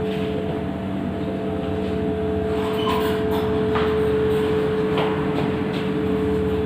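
Steady machine hum with a held mid-pitched tone. A second, higher tone cuts off a little under four seconds in, and a few faint knocks come through.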